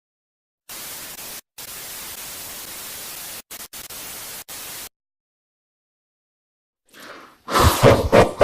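Electronic white-noise static, switched on and off abruptly with a few short gaps, as a digital glitch effect. After a pause, a loud stuttering sound starts pulsing about a second before the end, several strokes a second.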